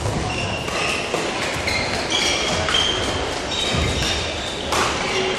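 Badminton shoes squeaking on the court floor and rackets striking shuttlecocks, echoing in a large sports hall, with a sharp smack just before five seconds in.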